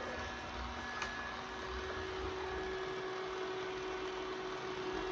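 Yeedi robot vacuum cleaner running: a steady hum with a constant tone, with one light click about a second in.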